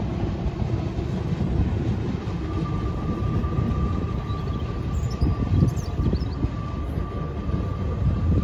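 RER C double-deck electric train running past below, a steady low rumble of wheels on rail. About two seconds in, a thin, steady high whine joins it and holds, with a few brief high squeaks near the middle.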